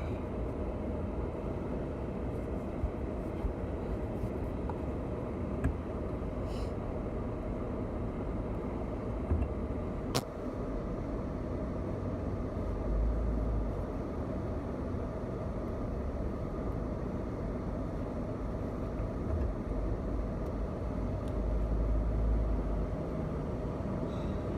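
Car driving, heard from inside the cabin: a steady low rumble of engine and road noise, with a few small clicks, the sharpest about ten seconds in.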